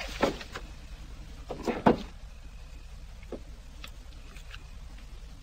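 A few sharp knocks and clatters of objects being handled on a table: one about a quarter second in, then a louder cluster near two seconds in, over a faint steady hum.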